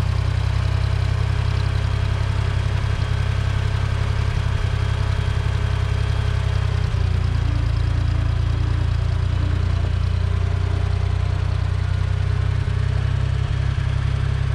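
1974 Ford 3550 industrial tractor's engine running steadily at idle.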